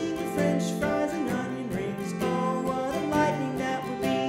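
Acoustic guitar and ukulele strummed together as the song's accompaniment.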